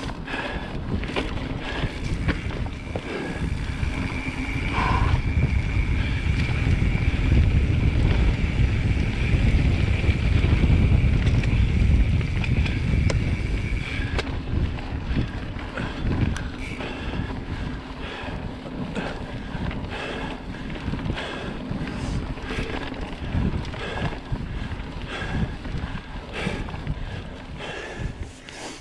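Mountain bike ridden over a rough forest singletrack. Wind buffets the camera microphone, heaviest from a few seconds in until about twelve seconds in. Throughout, the tyres run on dirt and the bike rattles and knocks over roots and stones.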